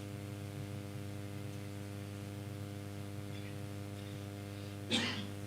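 Steady electrical mains hum: a low, even buzz with a stack of overtones that does not change.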